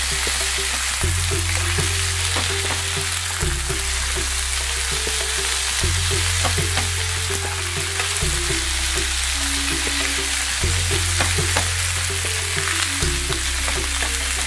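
Raw banana slices sizzling in hot oil in a frying pan over a high flame, with a steady hiss and scattered clicks of a spatula against the pan as they are stirred.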